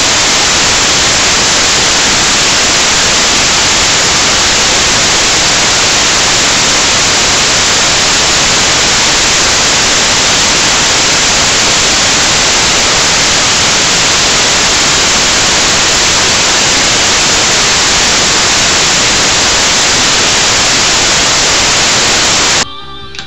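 Loud, steady static hiss filling the soundtrack, an even rush of noise with no tone in it: a random noise fault on the recording. It cuts off suddenly near the end, and rock and roll music with guitar comes in.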